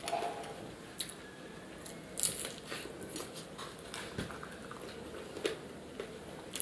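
A person biting into and chewing crispy fried roll samosa, with irregular crunches; the loudest crunch comes about two seconds in.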